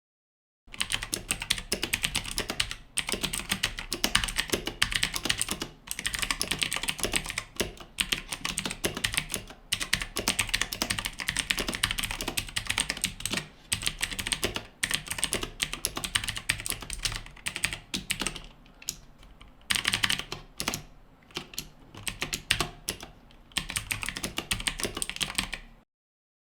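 Fast typing on a VicTsing 96-key mechanical keyboard: a dense stream of key clicks in runs of a few seconds with short pauses, starting about a second in and stopping shortly before the end.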